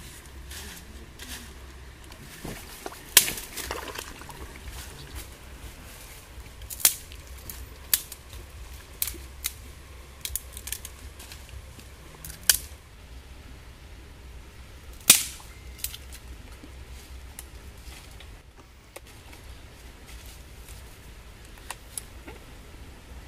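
Dry sticks snapped by hand: a series of sharp cracks, the loudest about three and fifteen seconds in, with lighter crackles between.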